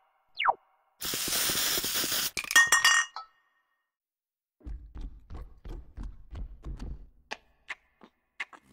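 Cartoon sound effects: a short swooping whistle, then a noisy crash about a second in that ends in clinking and tinkling like breaking glass. After a pause, a quick run of light clicks, about four a second, over a low rumble.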